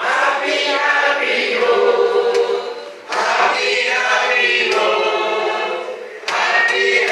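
A group of voices singing together in a church service, in phrases that break briefly about three and six seconds in.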